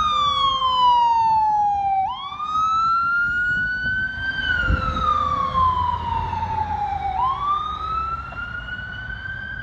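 Fire engine siren in a slow wail: it glides down, sweeps back up, and repeats about every five seconds, over a low engine rumble. A brief low thump comes about five seconds in.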